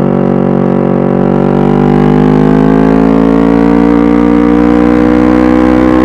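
Kawasaki Ninja 250 parallel-twin engine through an aftermarket 3Tech Tridente F22 silencer and stainless header, running under load. Its note holds steady, then climbs slowly from about two seconds in as the revs build.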